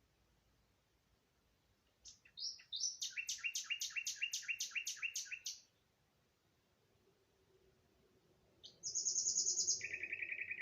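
Songbirds singing: a phrase of a few lead-in notes and then about a dozen quick repeated notes, about four a second, lasting some three seconds. After a pause comes a fast high trill that drops to a lower trill.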